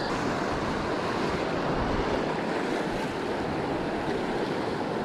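Steady rush of a fast, riffled river's current, with a low rumble of wind on the microphone.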